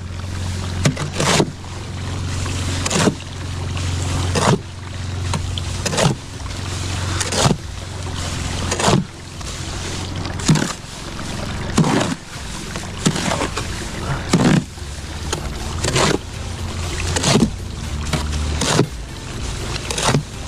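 Mortar hoe mixing wet sand-and-cement mortar in a wheelbarrow: a scraping push through the mix that ends in a knock, repeated about once every second and a half.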